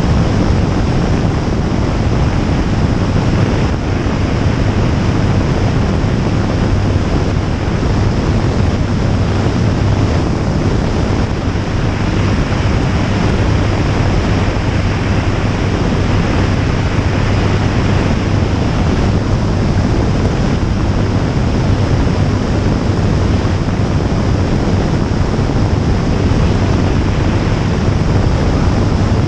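Jabiru J160 light aircraft in level flight: its four-cylinder Jabiru 2200 engine and propeller run at a steady low hum under a heavy, even rush of wind noise on the microphone.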